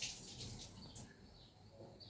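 Faint outdoor ambience with scattered short bird chirps and a low rumble, broken by a sharp click at the start and another about a second in.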